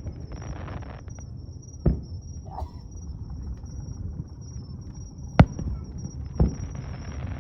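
Fireworks shells bursting: three booms, one about two seconds in, a louder one about five seconds in and another a second later, over a steady low rumble.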